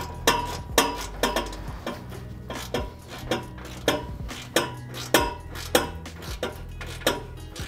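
Two steel spanners working the bolt and nut of an exhaust flange joint, clicking and clinking in sharp metallic ticks about twice a second as the nut is tightened.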